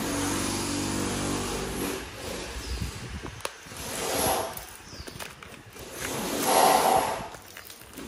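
Paper parcel wrapping being snipped with small scissors and torn open, rustling and ripping in two bursts, the louder one near the end. A steady machine hum runs for the first couple of seconds.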